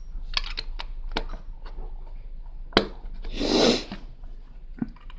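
Plastic Lego bricks clicking and tapping as they are picked up and handled, a string of small sharp clicks. A short rushing noise comes about three and a half seconds in.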